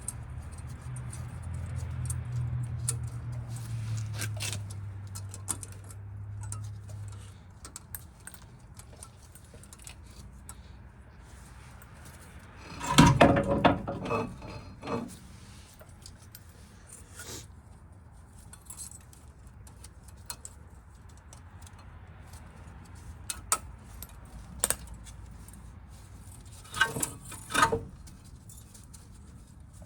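Metal tools and brake parts clinking and clattering during hand work on a car's front brake, with a loud metallic clatter about 13 seconds in and another burst of clinks near the end.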